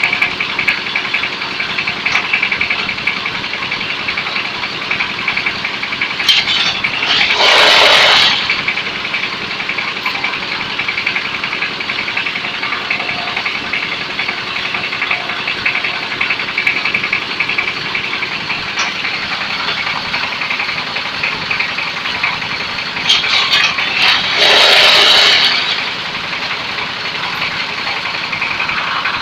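Concrete block (batako) press machine running steadily, with two louder stretches of about a second and a half each, roughly 17 seconds apart.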